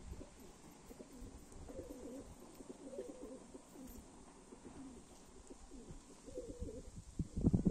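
Domestic pigeons cooing, a series of low repeated coos, with a louder stretch near the end.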